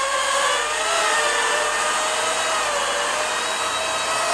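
SimToo Moment selfie quadcopter hovering, its four prop-guarded propellers and motors giving a steady buzzing whine whose pitch wavers a little as the motors adjust.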